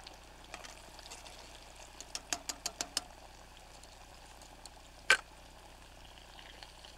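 Chicken deep-frying in hot grease: a steady sizzle with a quick run of about six pops two to three seconds in, and one sharper click about five seconds in.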